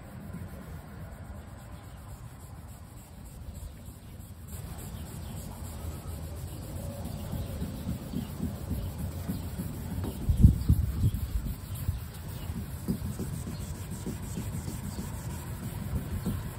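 Hand wet-sanding with a 1000-grit block on a truck's wet clear coat: a soft, uneven scrubbing of back-and-forth strokes, louder for a moment about ten seconds in. This is the colour-sanding stage that takes out the 400-grit scratches.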